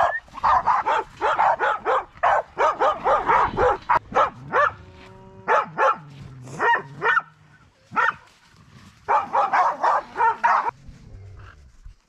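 A dog barking repeatedly, in quick runs of barks with short pauses between the runs.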